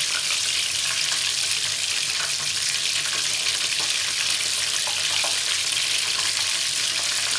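Flour-coated chicken pieces frying in a pan of hot oil: a steady sizzling hiss flecked with small crackles and pops.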